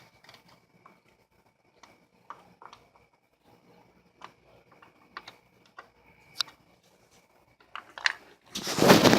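Scattered light clicks and taps of parts being handled and fitted in a car's engine bay, then a loud burst of noise near the end.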